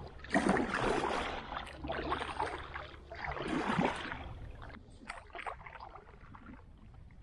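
Kayak paddle strokes in the water: two strong splashing strokes about three seconds apart, with smaller splashes between and after that die away.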